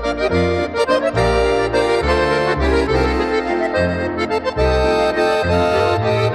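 Accordion music in a traditional folk style, with a bass line changing note about every half second under sustained chords and melody.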